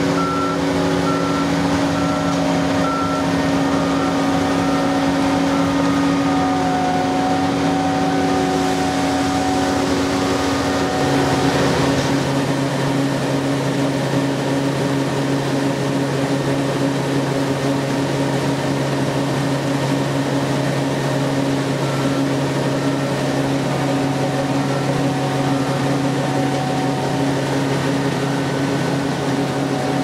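Combine harvester's diesel engine and threshing machinery running steadily. A rapid, regularly repeating electronic beep sounds over the first few seconds and again in the last eight or so, and a little before halfway the drone drops to a lower note.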